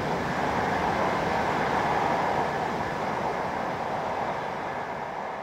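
Steady running noise of a W7 series Shinkansen heard inside the passenger cabin, an even rushing hum that slowly fades near the end.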